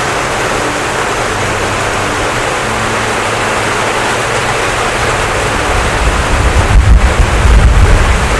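Steady hiss of heavy rain. Low rumbling buffets of wind on the microphone come in during the last few seconds.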